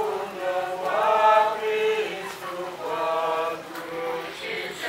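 Unaccompanied singing: voices chanting a slow melody in long held notes.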